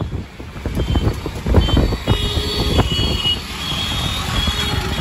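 Road noise from riding in a rickshaw through city traffic: a steady low rumble of the vehicle and passing traffic, with several short high-pitched beeps.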